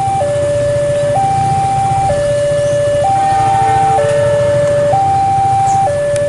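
Railway level-crossing warning alarm sounding its two-tone signal, alternating a higher and a lower tone about once a second, the sign that the barrier is down and a train is approaching. A low steady rumble runs underneath.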